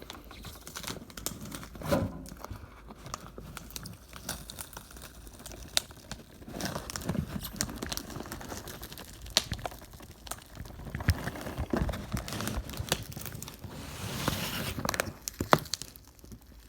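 Watch packaging being pulled at and torn open by hand: irregular crinkling, tearing and clicking handling noises, busiest around the middle and again near the end.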